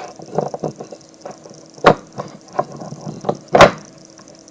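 Wooden toy railway track pieces being handled and knocked together: a run of light clicks and clacks, with two loud sharp knocks about two seconds and three and a half seconds in.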